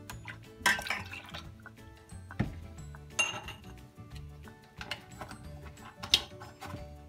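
Milk pouring from a drinking glass into a stainless steel pot, followed by a few brief clinks and knocks of glass and pot, over background music.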